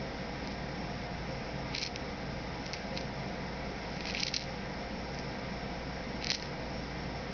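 Steady background hiss and hum with a few short, light high-pitched clicks and rattles about two, three, four and six seconds in: loose chips of coloured glass, beads and small glass jewels tumbling inside a hand-turned stained-glass kaleidoscope image wheel.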